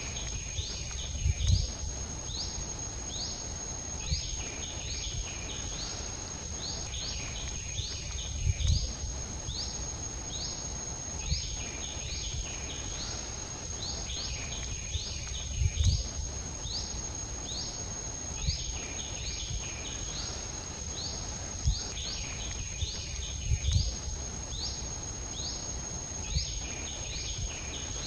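Outdoor ambience: a steady high-pitched insect drone, with short rising chirps repeated in quick clusters throughout. Low thumps come every few seconds and are the loudest sounds.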